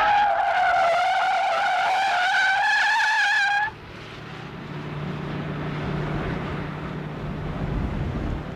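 A single held brass-like synth note, a music sting, wavering slightly and cutting off suddenly about three and a half seconds in. After it, a quieter low, steady rumble.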